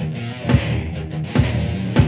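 Instrumental rock music: sustained guitar and bass chords with a heavy drum accent about once a second.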